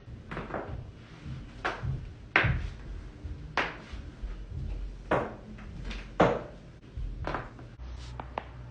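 Joints cracking: a string of about ten sharp pops at irregular intervals, the loudest about two and a half seconds and six seconds in, over a low rumble.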